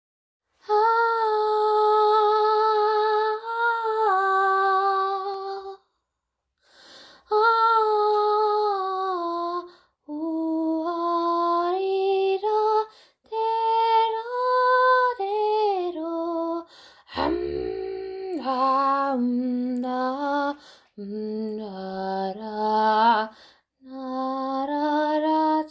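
A single unaccompanied voice singing wordless held notes on 'ahh', the melody stepping up and down between notes with short breaths between phrases.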